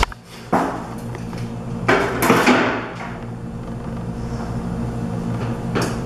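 A handful of sharp knocks and a clatter, the loudest about two seconds in, as a butcher's metal bow saw is set down on the cutting table after sawing through pork bone. A low steady hum runs underneath.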